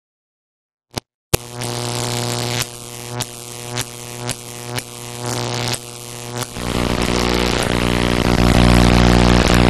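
Electric-arc sound effect: two sharp clicks, then a harsh electrical buzz broken by a string of crackling zaps about every half second. It swells into a louder, denser buzzing hum about two-thirds of the way through.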